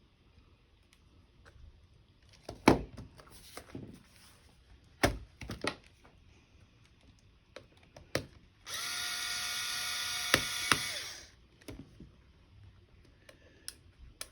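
Small electric screwdriver running steadily for about two and a half seconds, backing out a laptop battery screw. Before it come a few sharp clicks and knocks of parts being handled.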